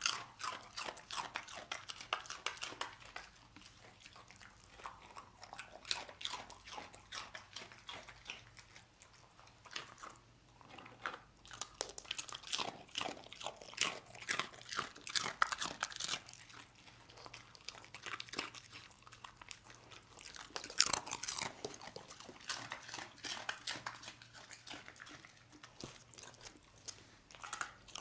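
A dog crunching and chewing dry spiral pasta snacks, with many crisp crunches coming in quick, irregular bursts.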